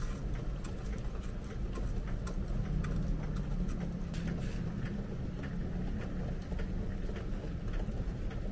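Faint handling sounds of an onigiri being pressed and rolled in furikake on a wooden plate: soft scattered taps and rustles of rice and seasoning, over a steady low hum.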